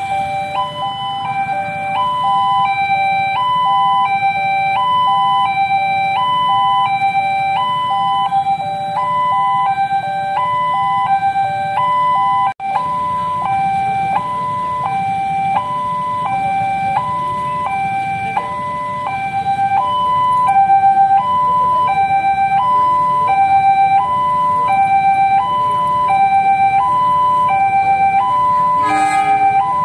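Railway level-crossing warning alarm sounding, an electronic signal switching steadily between a higher and a lower note about every half second. Under it is a low steady hum of waiting motorcycles.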